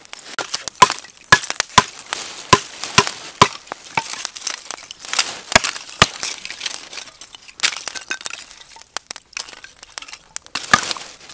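Burning charcoal fire crackling and popping: a dense, irregular run of sharp cracks and clinky snaps.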